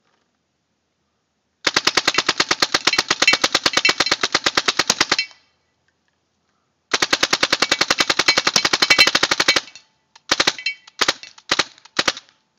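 Tippmann 98 paintball marker with a Response trigger and Cyclone feed firing two long, rapid strings of shots, then four short bursts near the end.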